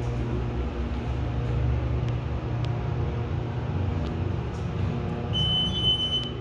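Hydraulic elevator car travelling down, a steady low hum and rumble, with a single high electronic beep lasting about a second near the end.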